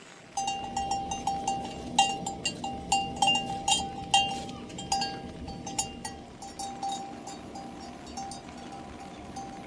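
A metal livestock bell clanking in rapid, irregular strokes as the animal moves. It is busiest in the first half and thins out toward the end, over a steady background hiss.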